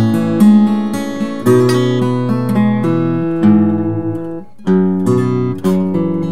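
Ralph Bown OM steel-string acoustic guitar, with a torrefied Sitka spruce top and Amazon rosewood back and sides, played fingerstyle. Ringing chords and bass notes are struck about once a second, with a short gap about four and a half seconds in before the next chord.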